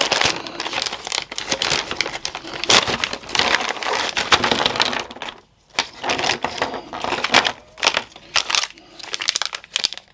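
Plastic packaging being crinkled and crumpled by hand as a boxed helping-hands soldering stand is unwrapped, in irregular crackling bursts with a short pause about halfway through.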